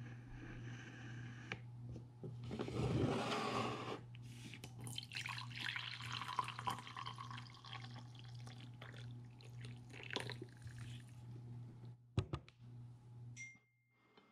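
Coffee being poured from a glass French press into a mug for several seconds, after its plunger is pushed down through the brewed coffee. A couple of sharp knocks near the end as the press is set down, over a steady low hum.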